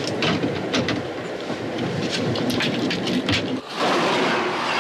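Passenger train running, its wheels clicking and clacking over the rails. About three and a half seconds in, the sound switches to the louder, even rush of the coaches passing by.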